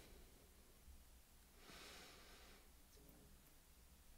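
Near silence: quiet room tone, with one faint breath about two seconds in.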